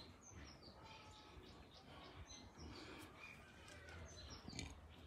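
Near silence with faint, scattered bird chirps: short high notes that dip in pitch.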